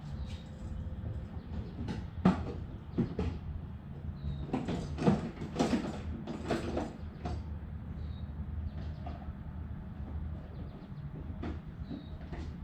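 A series of knocks, clunks and scraping noises over a steady low hum, busiest in the middle of the stretch.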